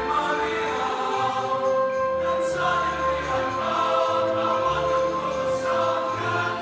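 A school choir singing with an accompanying instrumental ensemble, holding long notes in several parts at once.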